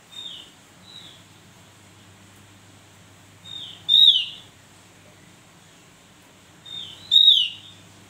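Javan grey-throated white-eye (opior jawa) calling: short whistled notes that slide downward, two faint ones near the start, then a softer note followed by a loud one about four seconds in, and the same pair again about seven seconds in.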